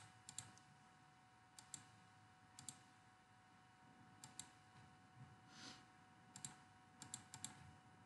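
Faint computer mouse clicks, mostly in quick press-and-release pairs, every second or so as menu items are selected. There is a brief soft rustle about two-thirds of the way in.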